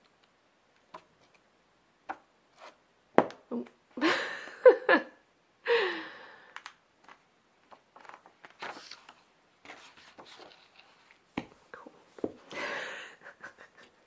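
Glossy pages of a large hardback art book being turned by hand: a few sharp flaps and swishes of paper, the loudest about three to six seconds in and again near the end, with lighter rustles and taps of handling in between.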